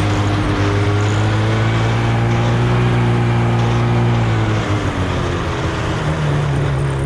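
Chainsaw engine running steadily at high revs while cutting; its pitch drops about four and a half seconds in, then settles higher near the end.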